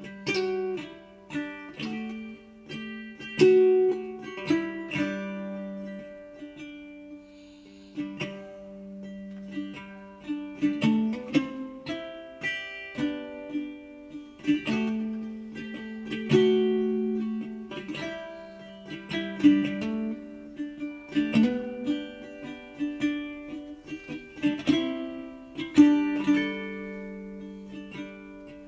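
Background music: a light instrumental tune of plucked-string notes, each note ringing and fading.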